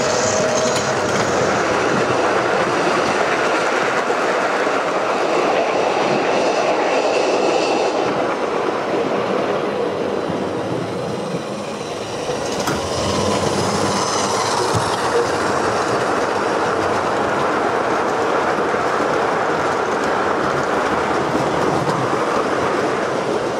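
Model trains running on the track: a steady rattle and clatter of metal wheels over the rails. It fades briefly about halfway through as one train clears and builds again as the next one comes through.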